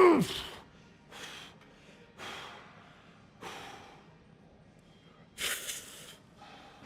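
A man's hard, forceful breathing while straining through a heavy set on a plate-loaded leg press. A strained groan falls away in pitch right at the start, then come four loud breaths a second or two apart, the last one the strongest.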